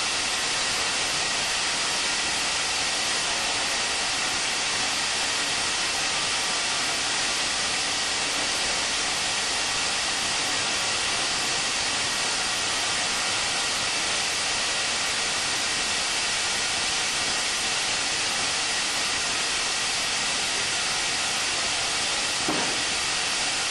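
Steady, even hiss of a sawmill running in a working mill shop, unchanging throughout, with a faint short knock near the end.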